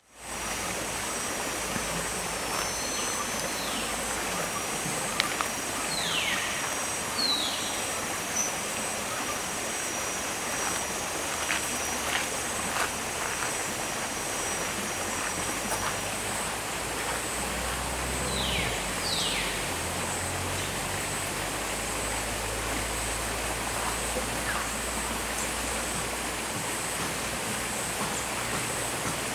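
Forest ambience: a steady rushing like running water, a constant high insect whine, and a handful of short falling bird whistles, most of them in two clusters early on and past the middle.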